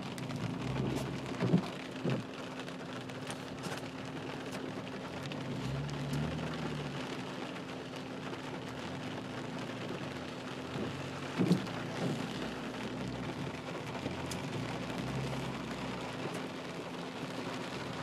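Rain pattering on a car's windshield and roof, heard from inside the car, over a steady low hum. A few brief knocks stand out, twice in quick pairs.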